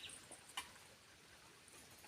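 Near silence in a forest, with a few faint high bird chirps near the start and a single sharp click about half a second in.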